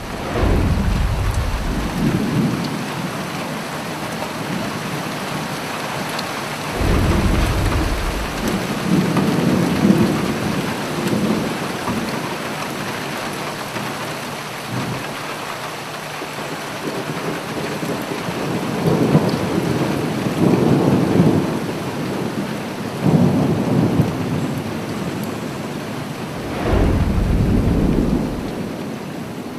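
Steady rain with rolls of thunder: deep rumbles at the start, about seven seconds in and near the end, with lighter swells of thunder in between.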